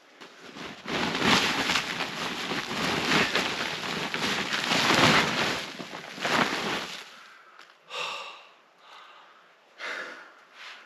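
Snowmobile's recoil starter rope pulled hard several times in a row, each pull a rasping surge, with the engine turning over but not starting. Then a couple of short heavy breaths from the effort.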